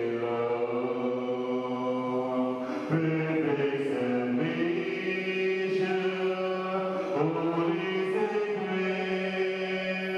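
Congregation singing a slow hymn together, voices holding long notes that change pitch every second or two.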